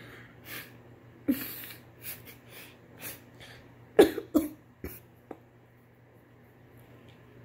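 A girl coughing and breathing sharply in a short run of bursts, the loudest two coughs coming close together about four seconds in.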